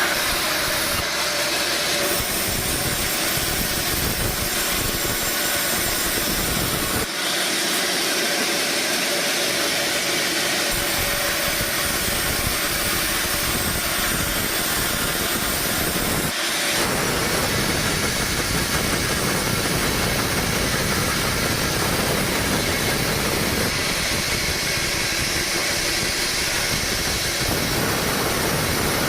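Sawmill machinery running, a loud steady mix of hiss and hum, shifting abruptly a couple of times.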